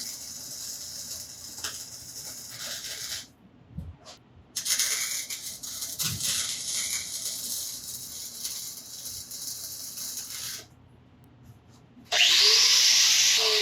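Welding arc crackling and hissing as a bead is run to fully weld a steering part in place, in two long runs with short pauses about 3 s and 10.5 s in. A louder hissing sound starts about 12 s in.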